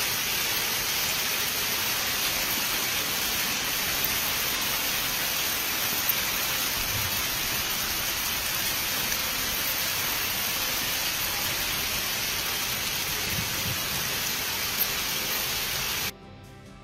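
Heavy downpour drumming on a paved street and sidewalk, a dense steady hiss of rain. It cuts off suddenly near the end.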